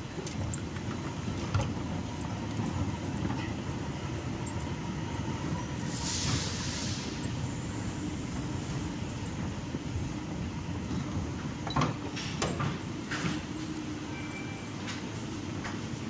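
A steamy hiss over the steady low rumble of a subway station. The hiss comes about six seconds in and lasts about a second. A few sharp clicks follow near the end.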